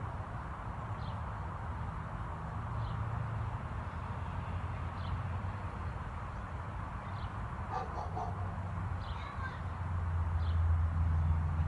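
A dog barking a few times at a distance about eight seconds in, over a steady low outdoor rumble. A short high chirp repeats about every two seconds throughout.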